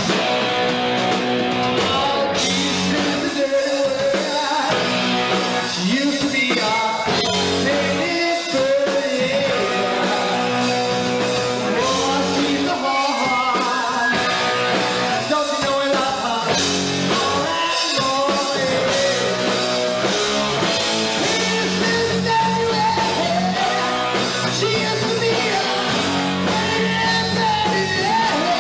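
Live rock band playing: electric guitars, bass guitar and drums, with a man singing into a microphone over them.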